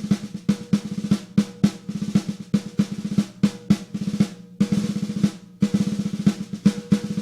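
Tama Artwood solid maple 14x8-inch snare drum played solo with sticks: quick runs of strokes and accents, each with a ringing tone, and a sustained roll a little past halfway through.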